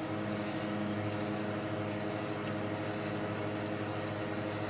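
Portable generator engine running steadily under the load of a washing machine, a steady hum with an even pitch.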